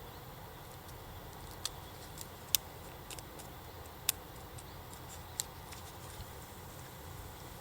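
A few sharp, isolated clicks or pops, about four clear ones a second or so apart, the second the loudest, over a faint steady low rumble.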